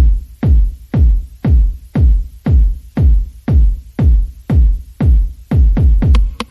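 Electronic background music with a steady, heavy kick-drum beat, about two beats a second.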